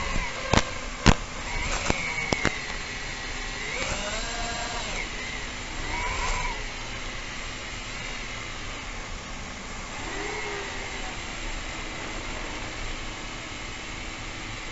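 FPV drone's motors and propellers running, with the pitch swelling and falling a few times as the throttle is changed, over a steady rush of air. There are several sharp knocks in the first couple of seconds.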